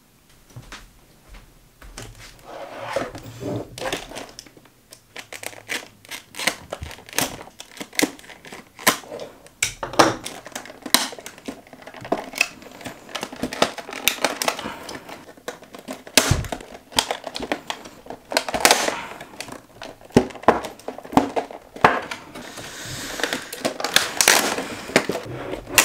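Stiff clear plastic blister packaging being pried and pulled apart by hand, crinkling and crackling with many sharp, irregular snaps.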